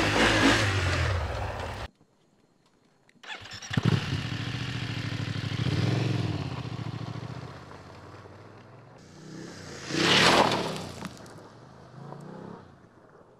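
BMW F850GS motorcycle's parallel-twin engine revving up and down as it accelerates on a loose gravel track, with gravel and dirt spraying from the rear tyre. There is a brief break to near silence about two seconds in, and about ten seconds in a loud rush of engine and flung gravel passes close by.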